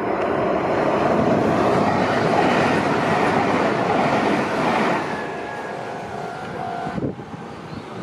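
A Meitetsu electric commuter train runs past a level crossing, loud for the first five seconds and then fading as it moves away. Behind it, the crossing's electronic warning bell rings steadily and stops about seven seconds in, as the barrier begins to lift.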